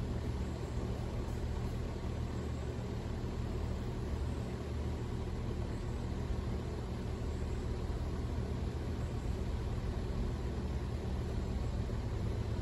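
A steady low rumble with a faint hiss over it, unchanging throughout.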